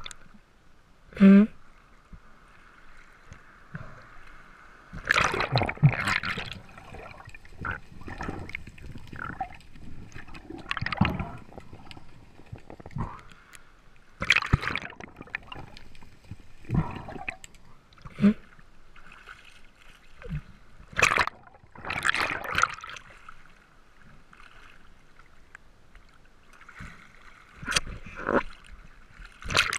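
Water splashing and sloshing in irregular bursts, with a short loud pitched sound about a second in.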